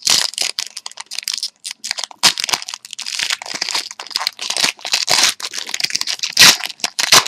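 Foil wrapper of a trading card pack being torn open and crinkled, in a dense run of irregular crackles, loudest shortly before the end.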